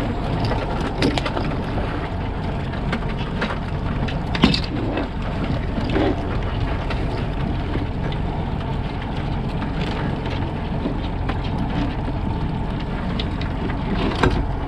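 Boat motor running steadily under wind and water noise, with a few sharp clicks and knocks from crabs and the trap being handled. The loudest knock comes about four and a half seconds in, another near the end.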